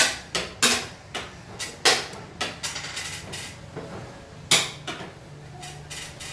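Irregular sharp clacks and knocks of hard objects, about a dozen, the loudest near the start, about two seconds in and about four and a half seconds in.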